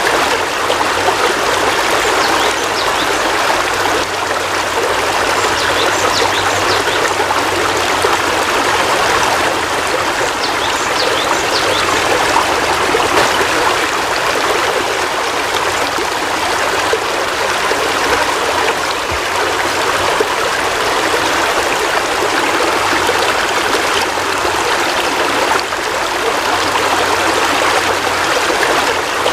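Heavy rain falling steadily, a dense even hiss and patter of drops with no breaks.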